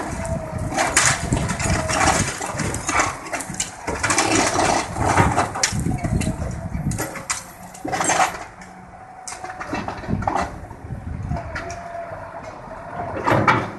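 Hydraulic excavator running while it tears down a cinder-block house, with repeated crashes and clatter of falling blocks and rubble. The crashing eases for a few seconds past the middle and comes back with a loud crash near the end.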